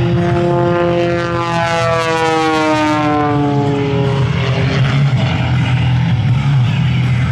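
Pitts aerobatic biplane's 400-horsepower propeller engine flying past, its note falling in pitch as it goes by, dropping fastest about two to four seconds in.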